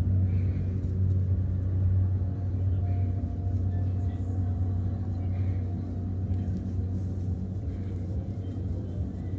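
Twin-engine turboprop plane climbing away after takeoff: a steady low engine and propeller drone that slowly fades as it moves off.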